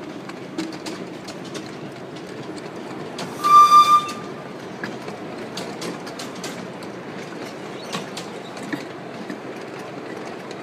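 Miniature railway train rolling along the track, its small wheels clicking over the rail joints over a steady rumble. About three seconds in, the train's whistle gives one short, loud, stuttering blast.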